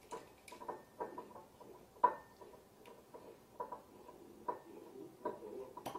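A wine cork being eased out of the bottle neck with a winged corkscrew: a string of irregular short squeaks and ticks as the cork is wiggled against the glass, with a sharp click near the end as it comes free.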